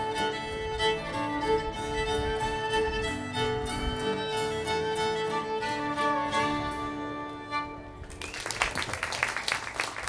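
Old-time string band playing live, a fiddle carrying the tune over strummed guitars and mandolin; the tune ends about eight seconds in and the audience breaks into applause.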